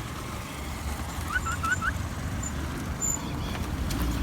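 Steady low rumble of street traffic, with a bird chirping four quick rising notes about a second and a half in.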